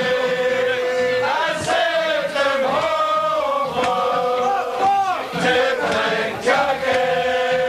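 A group of men singing a song together in a loud chorus, holding long notes and sliding between them.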